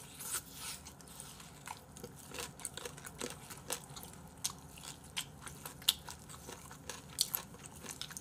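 Fried chicken being bitten and chewed close to the microphone, with a scatter of short, soft crunches.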